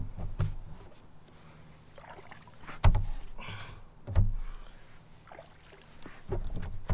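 Four dull knocks and thumps on a bass boat's bow and hull, each with a short boomy ring, the loudest about three seconds in, with water moving against the hull between them.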